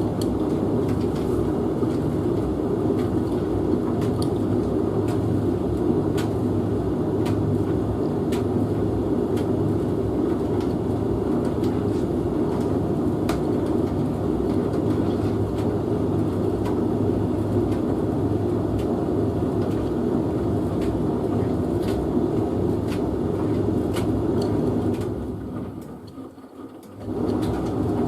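A Hotpoint Futura HF8B593G washing machine tumbling a wash load and a Hoover VHV68C tumble dryer running together: a steady mechanical drone with a low hum and occasional faint clicks. The sound drops away briefly near the end, then comes back.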